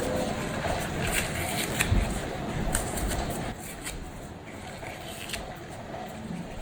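Rustling with scattered small clicks and taps, the sound of things being handled by hand.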